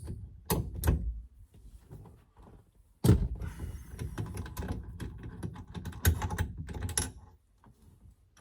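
Hand tools and a steering-wheel centre nut being worked, the 17 mm nut coming off: two sharp clicks, a loud knock about three seconds in, then a few seconds of small metallic clicks and rattles that stop near the end.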